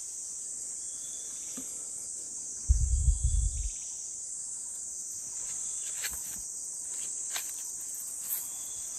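Steady high-pitched chorus of forest insects, crickets or cicadas, trilling without a break. About three seconds in, a brief loud low rumble lasting about a second cuts across it.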